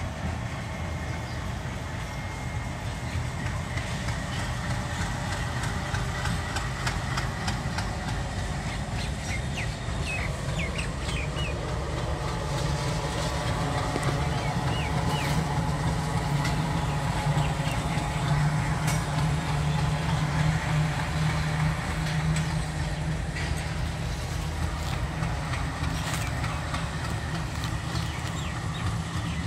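Diesel-electric locomotive engine running with a steady low drone. It grows louder toward the middle and eases off near the end.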